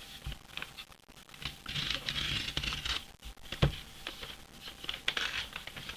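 A cardboard comic mailer being handled and opened by hand: scraping and rustling of cardboard and packing, with a sharp knock about three and a half seconds in and a few clicks near the end.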